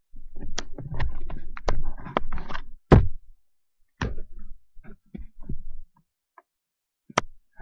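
Knocks, clicks and bumps from a webcam being carried and turned, dense in the first few seconds and ending in one loud thump about three seconds in, then a few scattered single knocks.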